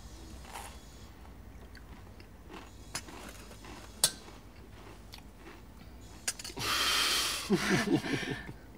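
Quiet chewing and small clinks of china cups and saucers on a coffee tray, with two sharp clicks midway. Near the end comes a loud breathy rush followed by short voiced sounds from a person.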